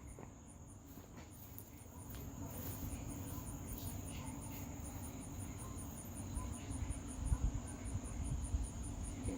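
Crickets chirping in a rapid, even pulse over a steady high drone, with a low rumble that has a few bumps about seven seconds in.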